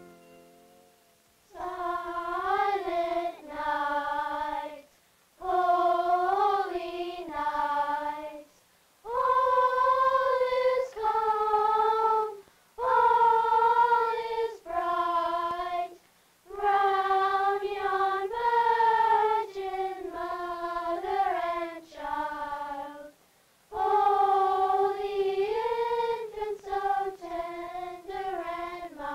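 A group of children singing a Christmas carol together without accompaniment, in short phrases of held notes with brief pauses between them.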